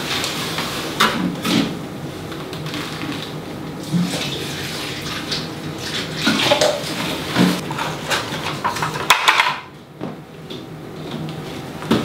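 Water pouring from a watering can into potted plants, with repeated knocks and clinks of pots being handled and set down; the pouring stops a little before the end.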